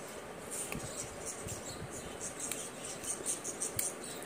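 Faint mouth clicks and smacks of a person chewing a tart mash of wood apple eaten off the fingers. A pulsing high hiss sits behind it.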